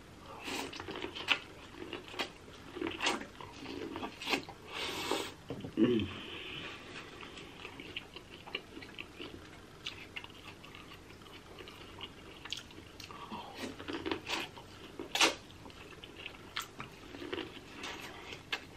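Close-miked eating from a seafood boil: chewing and mouth smacking with many sharp clicks and cracks scattered through.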